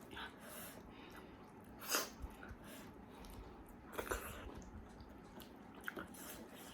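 Eating sounds close to the microphone: quiet chewing with a few short, sharp mouth noises, the loudest about two, four and six seconds in.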